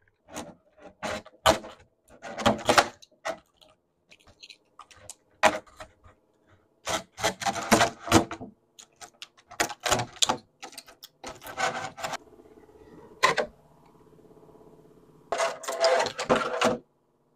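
Clear plastic blister tray of an action-figure package crinkling and crackling as it is handled, in a string of short irregular bursts with quiet gaps between them.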